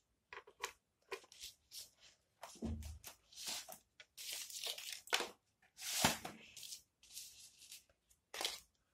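Plastic casing of a rechargeable solar lantern being handled and turned over: a string of short, irregular scrapes, rubs and knocks.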